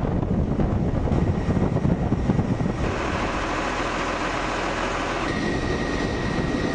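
Vehicle running, with a heavy low rumble. About three seconds in the sound changes abruptly to a steadier hiss, and a thin steady whine joins about two seconds later.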